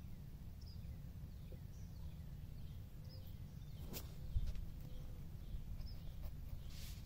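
Faint, scattered bird chirps over a steady low rumble, with one sharp click and a brief low bump about four seconds in.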